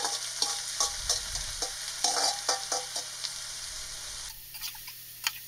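Hot oil sizzling in an aluminium pot as chopped leafy koyagura greens are tipped in and stirred with a perforated metal spoon, with quick clicks and scrapes of the spoon against the pot. The sizzling drops away sharply about four seconds in.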